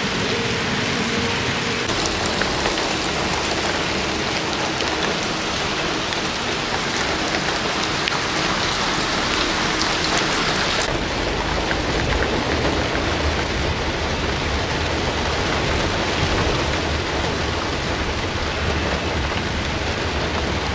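Steady heavy rain falling on a wet street. About halfway through, the sound shifts to rain heard from inside a car, spattering on the windshield, with the highest hiss dulled and a low rumble underneath.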